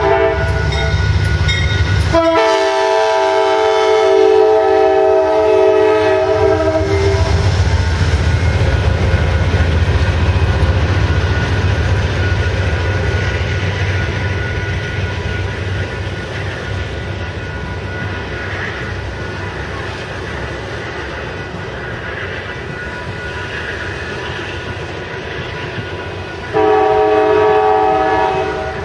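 Diesel locomotive air horn sounding several notes at once, a long blast of about five seconds and then a shorter blast near the end, over the low rumble of a passing train that slowly fades in between.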